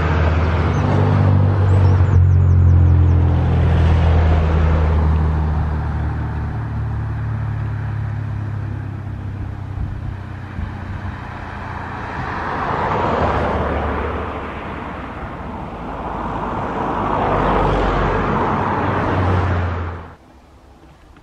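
Twin-jet airliner landing: a steady engine roar with a low hum, swelling twice in the second half, then cut off suddenly near the end.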